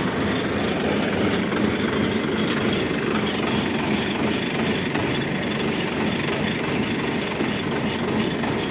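Rice combine harvester's engine running steadily.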